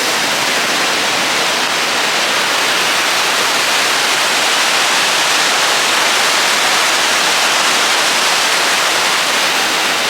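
A waterfall's steady rush of falling water, loud and unbroken.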